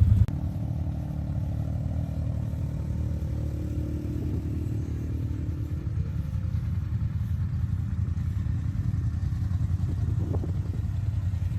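Side-by-side UTV engine running steadily while driving along a trail, a 2022 CFMoto ZForce 950 HO EX, with a drive tone that drops slightly in pitch over the first few seconds and then holds steady.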